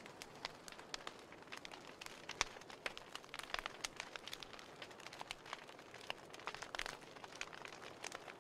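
Crumpled paper burning, crackling and ticking irregularly several times a second over a faint hiss.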